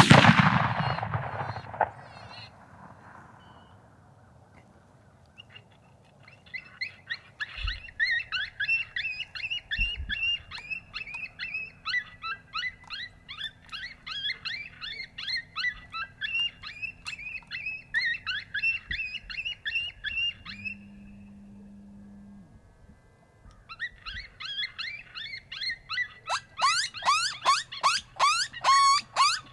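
A single gunshot, the loudest sound, with its report dying away over about two seconds. Several seconds later a long run of rapid, high yelping calls starts, and near the end sharper falling squeals come louder and faster.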